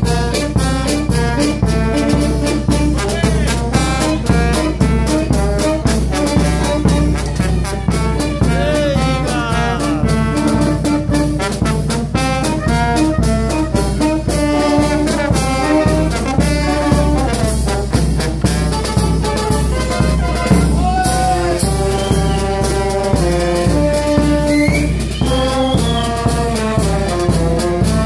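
Street brass band playing a lively tune: trumpets, trombone and saxophones over a bass drum and snare drums keeping a steady beat, with a few sliding notes from the horns.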